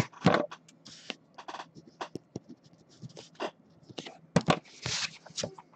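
Trading cards being handled on a tabletop: an irregular string of short scrapes, taps and rustles.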